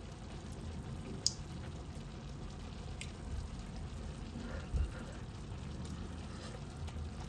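Quiet kitchen with a steady low hum, and two faint sharp clicks of a metal spoon against the pot, under two seconds apart, as food is scooped up to taste.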